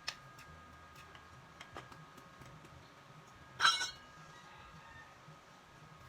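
A few faint clicks, then one sharp clink with a short ring about three and a half seconds in, like hard objects knocking together.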